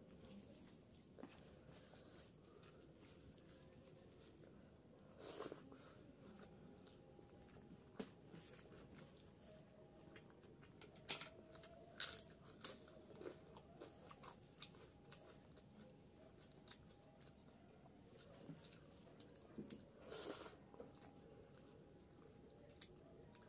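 Close-up eating sounds: a person chewing a mouthful of hand-mixed rice and curry, with a few sharp crunchy bites in the middle and some scattered small clicks and smacks.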